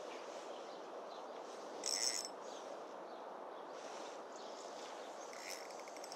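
Steady outdoor background noise, with one short, high-pitched chirp about two seconds in and a few light clicks near the end.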